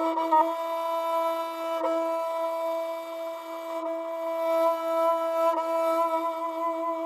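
Flute music: a single long, steady note held for several seconds, with brief ornamental turns in pitch near the start and twice more later.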